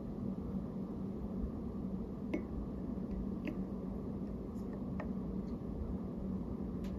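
A chocolate gingerbread figure being dipped into a ceramic mug of milk: a few faint light clicks and soft squishes over a steady low hum.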